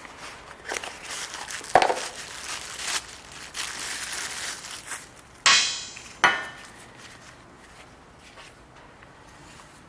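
Metal parts clinking and scraping as a bearing unit is replaced, then two sharp metal strikes with a ringing tail, less than a second apart.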